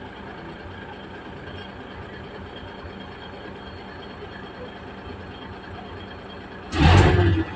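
Fuso 6M70 truck's diesel engine idling steadily. Near the end there is one short, loud rush of noise lasting under a second.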